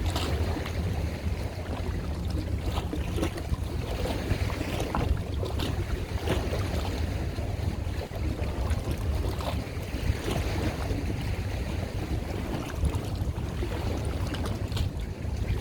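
Wind buffeting the microphone over water, with a steady low rumble and a few faint clicks.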